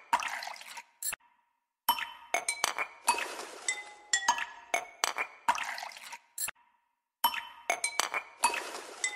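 A metal spoon stirring chopped onion and ginger-garlic paste in a steel pot, clinking and scraping against the pot's sides and bottom with short ringing notes, over a wet squelching of the mixture. The stirring stops twice, for under a second each time.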